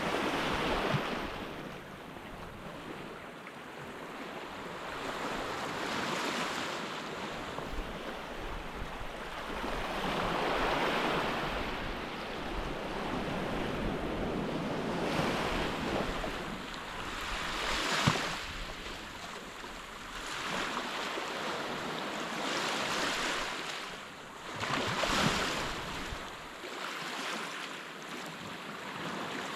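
Surf washing onto a sandy beach, the noise of the waves swelling and fading every few seconds, with some wind on the microphone. There is a single sharp click about two-thirds of the way through.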